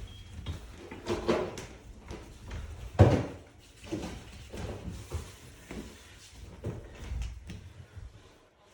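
Irregular knocks, bumps and clunks of things being handled and moved, with one sharp thump about three seconds in.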